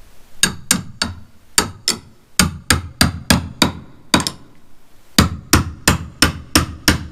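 Repeated hammer blows, two to three a second, driving a porch-swing anchor through a pilot hole in a wooden beam, each blow ringing sharply. There is a short pause about four seconds in, then a quicker, even run of blows.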